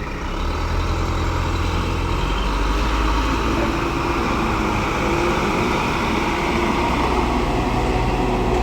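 Loaded dump truck's diesel engine running under load, growing louder about half a second in and then holding steady.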